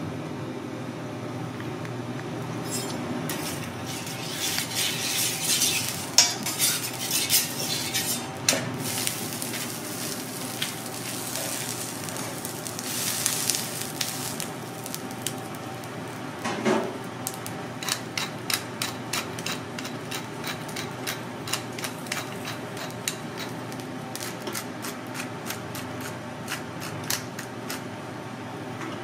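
Cooking at a steel teppanyaki griddle: metal utensils clink and scrape over a steady hiss and hum. In the second half a long run of sharp ticks and crackles comes as the split giant tiger prawn sits on the hot plate and is salted.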